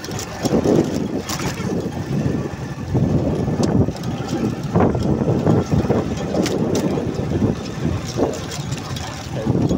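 Motorcycle engine running while riding along a sandy dirt track, an uneven rumble with wind noise on the microphone.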